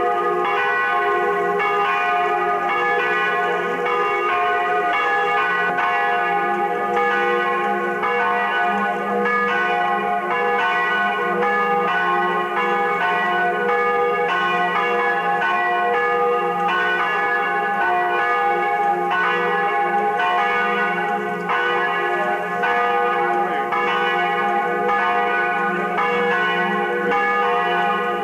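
Church bells ringing without a break, several bells struck one after another so their tones overlap.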